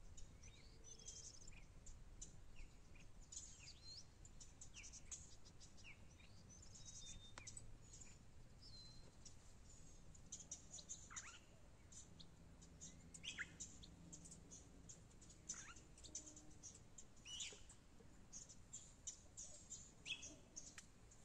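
Faint birdsong from several small birds: many short high chirps throughout, and in the second half a few calls that slide downward in pitch, repeating every couple of seconds.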